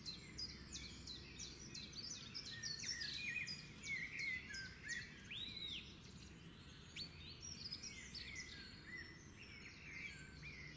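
Faint birds chirping and twittering: many short, high calls, some swooping up and down, over a low background hiss.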